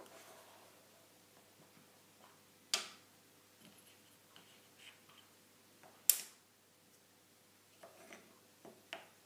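Small walnut and boxwood boxes, lids and pieces handled and set down on a wooden tabletop: faint light taps and clicks, with two sharp wooden knocks about three and six seconds in and a few small clicks near the end.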